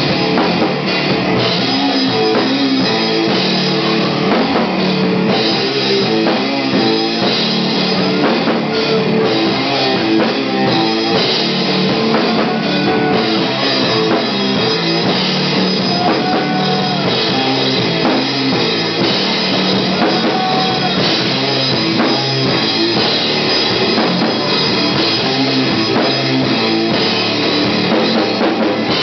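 Stoner rock band playing live: electric guitar over a drum kit, loud and continuous.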